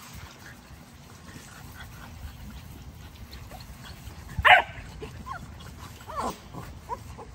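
XL American Bully puppies yipping and whining, with one loud yelp about halfway through followed by several short, fainter whines.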